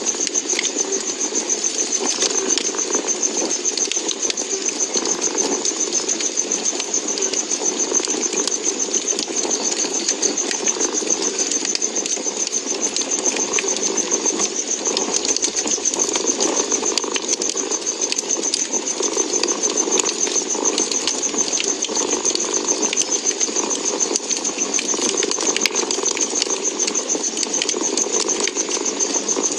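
A cat purring steadily, mixed with a wood fire crackling with many small pops.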